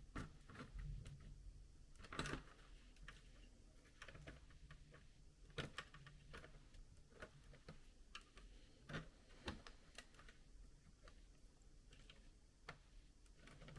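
Faint, irregular clicks and taps of plastic laptop case parts being pried and handled with a plastic opening tool, with a few slightly louder clicks about two seconds in and again around the middle.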